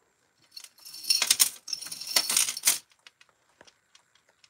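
Metal costume jewelry, chains, bracelets and beads, jangling and clinking against a glass jar and acrylic tray in two bursts about a second in, followed by a few light clicks as pieces are handled.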